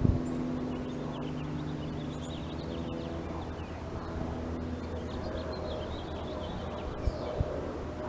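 Steady low mechanical hum, with small birds chirping faintly and often in the background, and two short soft knocks near the end.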